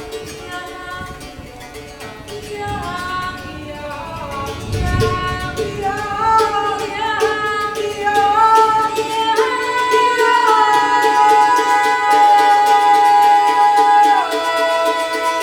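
Improvised music: female voices sing long held notes that step between pitches over a steady drone, growing louder through the passage. There is a brief low rumble about five seconds in.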